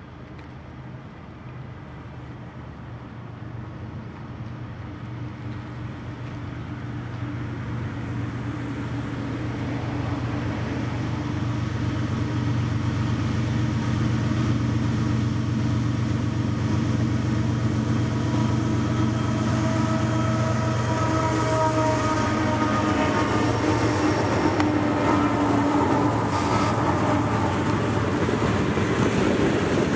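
Freight train led by GE diesel-electric locomotives (ES44AC and C40-9W) approaching. The steady low engine drone grows louder over the first dozen seconds, then holds loud as the train passes, with the wheels of covered hopper cars rolling over the rails near the end.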